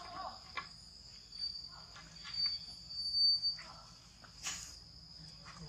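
Insects buzzing in a steady high drone that swells and fades, with scattered small clicks and knocks over it.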